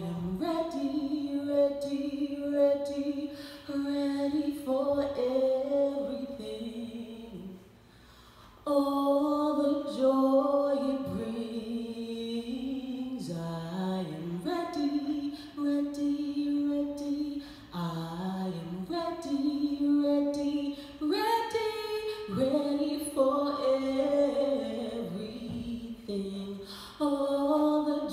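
A woman's solo voice singing a cappella into a microphone, holding long notes, with a brief pause about eight seconds in.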